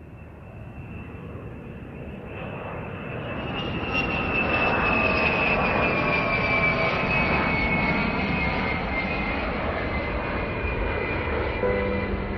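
Jet airliner flying overhead. Its engine rush swells over the first few seconds and then holds loud, with a high whine sliding slowly down in pitch. Soft piano notes come in near the end.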